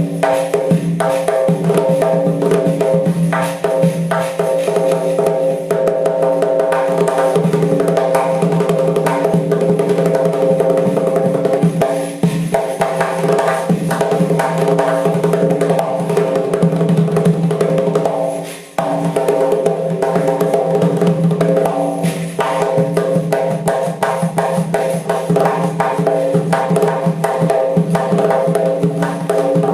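Doira, the Uzbek frame drum with jingle rings, played in a fast, dense, continuous rhythm, with a brief break about two-thirds of the way through.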